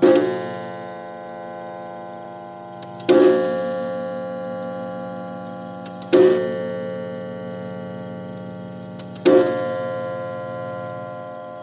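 James Muirhead clock striking the hour: its hammer hits a coiled wire gong four times, about three seconds apart, and each blow rings on and slowly dies away. These are part of the eleven blows for 11 o'clock.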